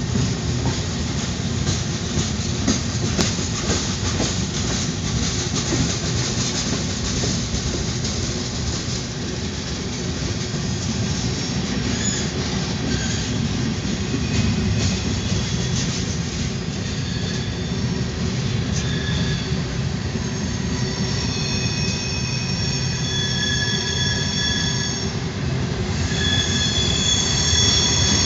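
Freight train of covered hopper and tank cars rolling past: a steady rumble with wheel clicks over the rail joints. Halfway through, high-pitched wheel squeal begins in several steady tones and carries on almost continuously through the last third.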